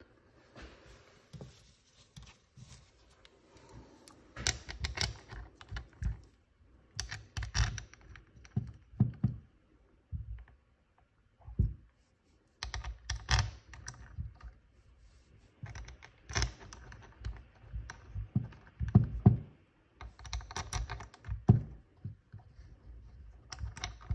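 Small metal parts clicking and clattering in irregular clusters as the cap and its bolts are fitted to a BMW VANOS unit and the bolts are threaded in by hand.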